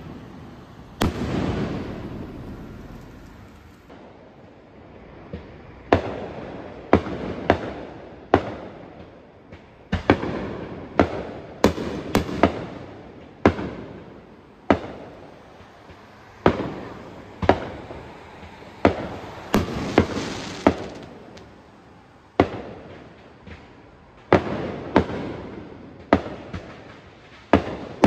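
Aerial fireworks bursting overhead: more than twenty sharp bangs at irregular intervals, some in quick runs a fraction of a second apart, each followed by a rolling echo that fades over about a second.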